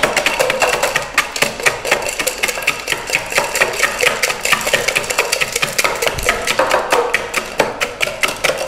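Two muddlers pounding lemon wedges and mint in stainless steel cocktail shakers: rapid, uneven knocks, several a second, from both shakers at once.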